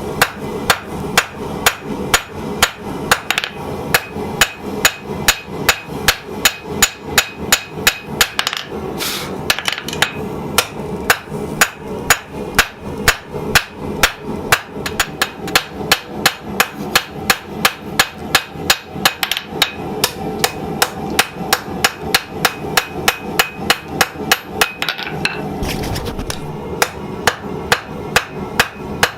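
Hand hammer striking steel on an anvil in a steady forging rhythm, about three blows a second, with one short pause near the end.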